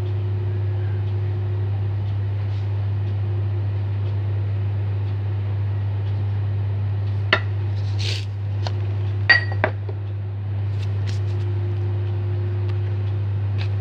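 A few sharp clinks and a short rustle from kitchen containers and utensils a little past halfway, one clink ringing briefly, over a steady low hum.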